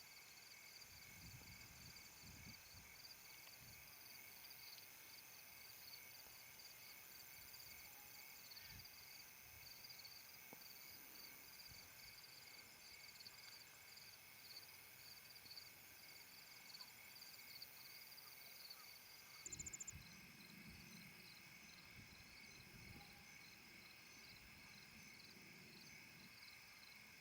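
Faint steady chorus of crickets and other insects chirping, with rapid pulsed chirps. A brief low rustle about twenty seconds in.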